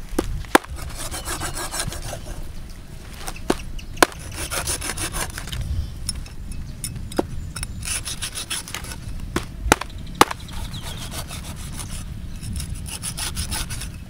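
Large knife sawing through a stingray's skin and flesh in repeated rasping strokes, with several sharp knocks of the blade on wood.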